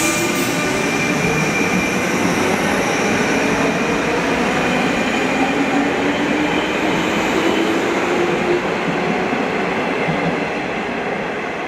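JR 201 series electric train accelerating away, its armature chopper control and traction motors giving a whine that rises slowly in pitch over the wheel and rail noise.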